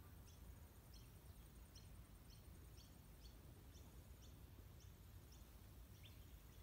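Near silence: faint outdoor ambience, a low rumble with faint high chirps repeating about twice a second.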